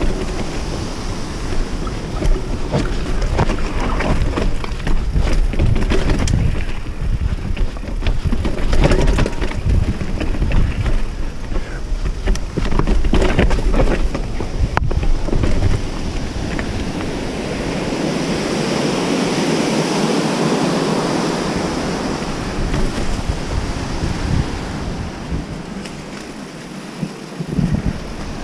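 Specialized S-Works 29er mountain bike ridden hard down a rocky trail and stone steps: tyres, chain and frame knock and rattle over the rock, with wind rushing over the action camera's microphone. The knocking is densest in the first half and gives way to a steadier rushing noise, with another hard knock near the end.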